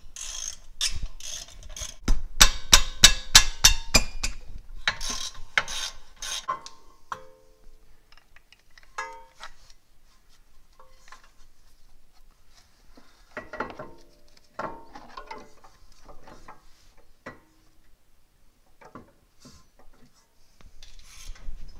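Ratchet wrench clicking rapidly in bursts, about five clicks a second, working the 17 mm rear brake bolts. After about seven seconds it gives way to scattered metallic clinks and clanks of tools and brake parts being handled.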